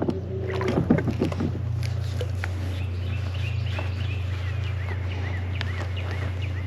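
A songbird calling a quick series of repeated, rising-and-falling high notes, about three a second, starting about three seconds in, over a steady low hum.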